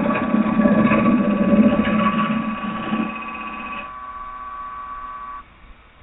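Carbide-tipped turning tool cutting a spinning blank of very green oak on a wood lathe, a loud rough cutting noise that may be due to the green wood: the tool is pulling the wet fibres up rather than cutting cleanly. The tool comes off the wood about three seconds in, leaving the lathe's steady motor whine, which cuts off suddenly about five seconds in.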